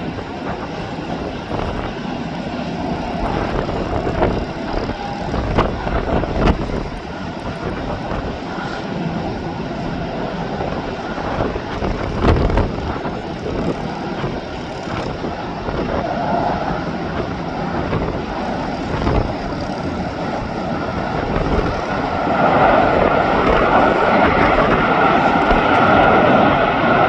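Boeing 737 jet engines during a landing in gusty wind: a steady engine roar with scattered wind thumps. The engine noise swells louder about 22 seconds in and stays up to the end.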